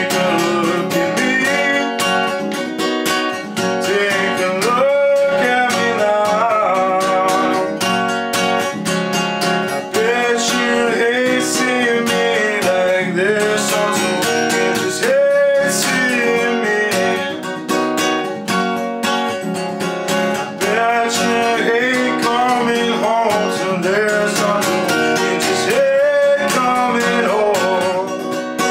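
Takamine acoustic guitar strummed with a capo on, with a man singing over it.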